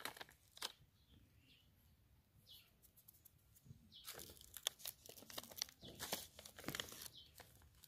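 Faint crinkling and rustling of a paper chemical sachet being handled, in two spells: a few crackles at the start, then a denser run from about four seconds in until near the end, with a quiet gap between.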